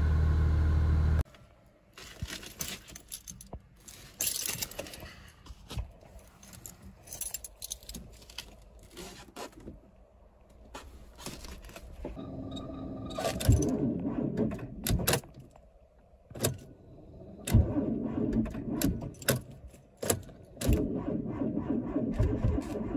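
A 2008 Honda Ridgeline's 3.5 V6 idles just after a cold start and is cut off about a second in. Then comes faint rattling of keys and clicks in a Fiat Punto 1.2 8v. From about halfway in, its starter cranks the engine in three attempts, with short pauses between them, without it starting: the battery is failing in deep cold.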